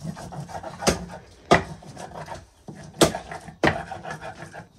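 A stone handstone scraped back and forth on a flat silauta grinding stone, grinding spices to a wet paste: steady rubbing and grating with sharp stone knocks, in pairs about every two seconds.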